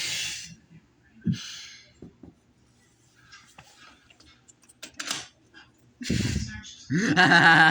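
Pet dogs breathing and huffing in a few short bursts, then, about six seconds in, a loud drawn-out vocalisation from a dog with a wavering pitch.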